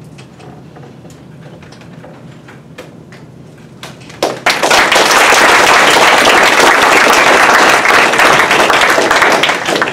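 Audience applauding, starting about four seconds in and stopping near the end, after a few seconds of quiet room sound.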